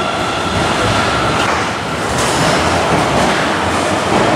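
Guangzhou Metro Line 3 train pulling out of the station behind the platform screen doors: a steady, loud rushing rumble of wheels and air.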